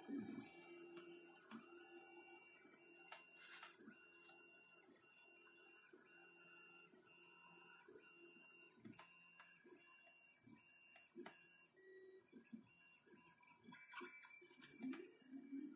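Faint Creality CR-10 3D printer at work: stepper motors whining in short, repeated moves, with scattered light clicks.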